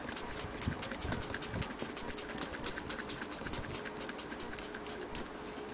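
Antique Willcox & Gibbs sewing machine running, its mechanism clicking rapidly and evenly at about eight clicks a second, then stopping.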